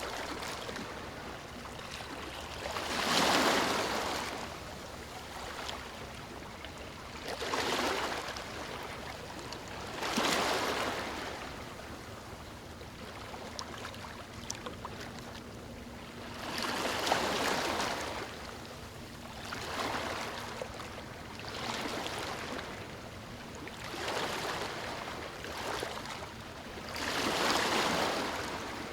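Ocean waves breaking and washing up a beach, coming in as repeated swells of surf every few seconds over a steady background wash, with a few faint clicks.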